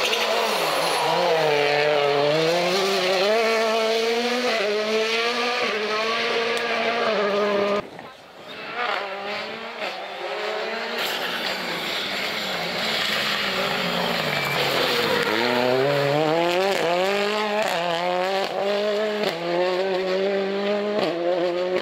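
Rally cars' engines revving hard through the gears, the pitch climbing and dropping sharply with each shift and lift. The sound breaks off about eight seconds in and a second car is heard the same way.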